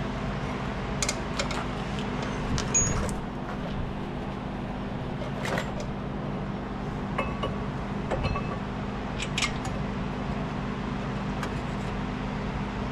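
Scattered metallic clicks and clinks of hand tools and brake parts being handled, some ringing briefly, over a steady low hum.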